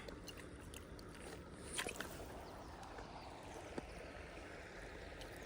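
Faint steady outdoor background noise with a few light clicks, the clearest about two seconds in.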